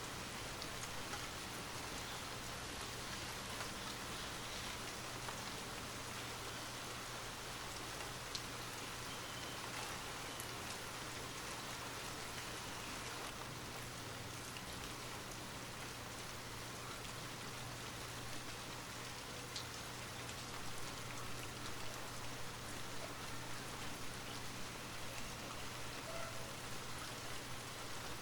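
Light rain falling steadily: an even hiss with scattered drop ticks.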